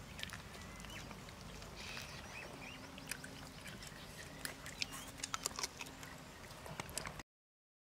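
Smacking and chewing clicks of people eating with their hands, coming thick and fast in the second half, over faint bird chirps. The sound cuts off suddenly a little after seven seconds.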